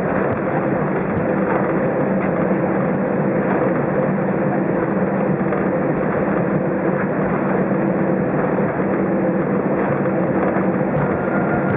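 Steady cabin noise of an Airbus A320 taxiing after landing: a constant engine drone at idle with a low hum.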